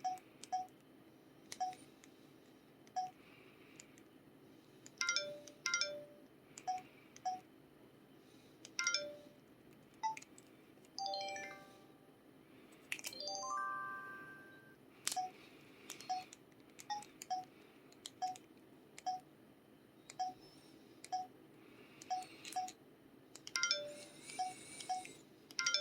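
Samsung SPH-X7500 phone's keypad button tones: short 'tong' blips, each with the click of a key press, one to two a second, and a couple of short multi-note alert jingles in the middle, one stepping up in pitch.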